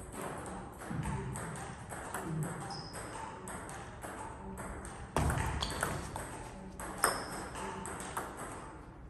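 Table tennis balls ticking off tables and paddles in a sports hall, a few light clicks a second, with a sharper click about seven seconds in.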